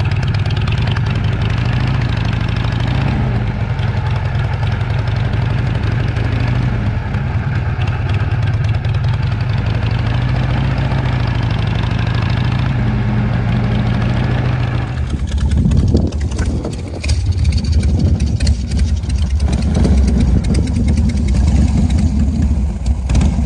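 Motorcycle engine running steadily while being ridden; about fifteen seconds in the ride stops and the sound settles to the lower rumble of motorcycles idling.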